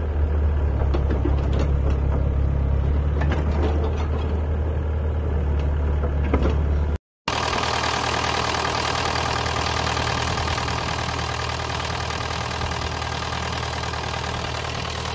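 Sany SY55C mini excavator's diesel engine running while its steel tracks crawl and clank over loose dirt. About seven seconds in, the sound cuts to a close-up of the Isuzu diesel engine idling with its oil filler cap off, giving a steady, even clatter.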